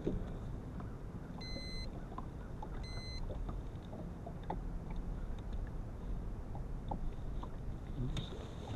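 Steady low rumble of wind and water on an open fishing boat, with faint scattered ticks. Two short electronic beeps come about a second and a half and three seconds in, the first a little longer than the second.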